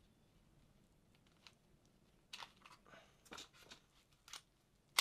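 Handling of a WG CO2 non-blowback 1911 airsoft pistol: after a quiet start, a scatter of light clicks and rustles from the pistol and the gloved hand working it, ending in a sharper click.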